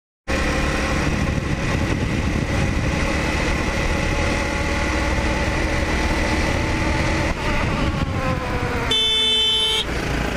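Honda CRF250L single-cylinder four-stroke engine running steadily with wind noise. Its note falls as the bike slows, and about nine seconds in a horn sounds for under a second.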